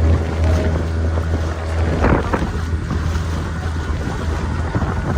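Motorboat engine running steadily under way, a low hum with wind buffeting the microphone. A brief rush of noise comes about two seconds in.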